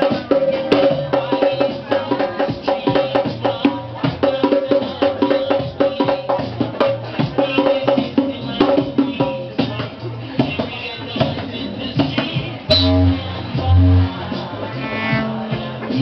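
Live percussion music: hand drums and rattles playing a busy rhythm over a held note. The playing stops about twelve and a half seconds in, followed by two heavy low thumps.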